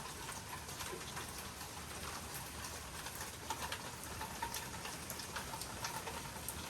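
Light, steady rain falling, with many small drops ticking on nearby surfaces.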